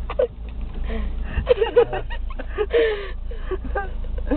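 Breathy, stifled laughing and unclear murmuring from people inside a car, over the steady low hum of its idling engine.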